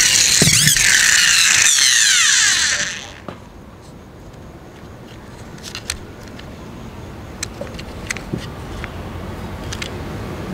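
Red plastic toy 4x4 car's wheels and gearbox whirring loudly as it is pushed along a wooden table, falling in pitch as it spins down over about three seconds. After that come a few light clicks and plastic handling sounds as the toy is picked up.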